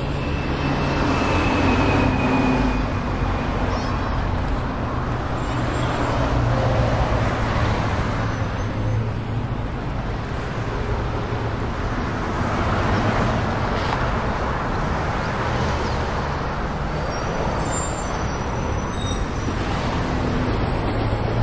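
A loud, steady rushing and rumbling noise that swells and fades slowly every few seconds.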